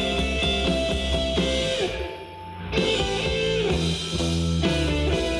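Instrumental rock with electric guitar and drum kit, played back through JBL LSR305 studio monitors on desk stands. The music briefly thins out and drops in level about two seconds in, then comes back in full.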